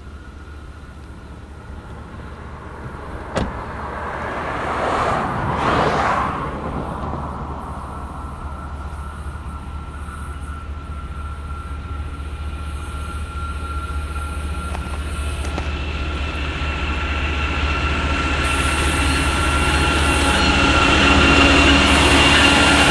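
Union Pacific double-stack freight train, led by several diesel locomotives, approaching on a curve: the engine rumble and rail noise grow steadily louder, with a thin high steady whine over them. A sharp click about three seconds in and a short rushing swell around five to six seconds in.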